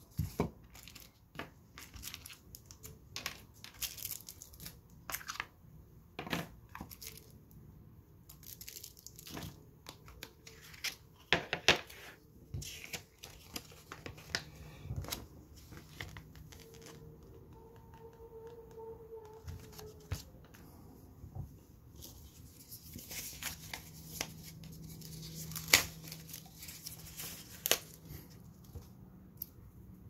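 Handling of packaging and small parts: paper and plastic rustling and crinkling, broken by scattered sharp clicks and taps, the loudest about a third of the way in and again past the three-quarter mark.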